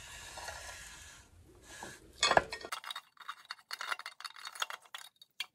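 Metal clinks and light scraping of a spanner wrench working the steel retainer nut on a Mercruiser outdrive upper unit as it is turned clockwise to tighten: one sharp clink a little past two seconds in, then a run of small, irregular ticks.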